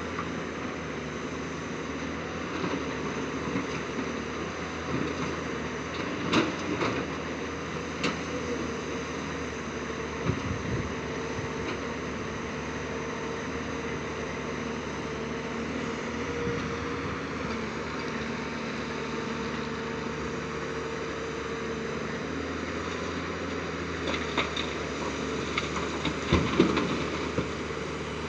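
Tata Hitachi 200 Super hydraulic excavator's diesel engine running steadily as it digs, with a few sharp knocks of rock against the steel bucket, the loudest near the end.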